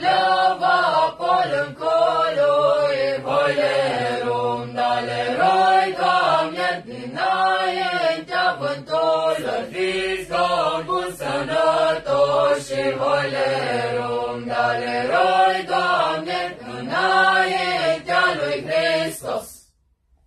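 A group of young men and women singing a traditional Romanian colindă (Christmas carol) together; the singing stops abruptly near the end.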